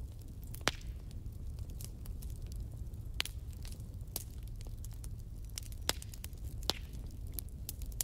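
Wood fire burning, crackling with irregular sharp pops, a few of them louder, over a low steady rumble.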